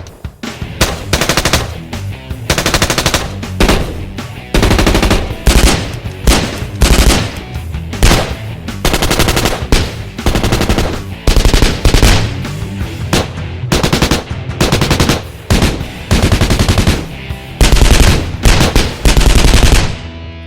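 European assault rifles (FN FAL, HK33, SIG 551) firing on full automatic: a string of about a dozen loud bursts, each a rapid run of shots, separated by short pauses.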